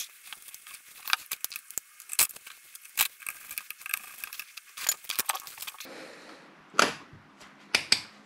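Screwdriver turning small screws back into a bench power supply's metal case and circuit board: irregular sharp clicks and small metallic rattles, with a few louder knocks near the end.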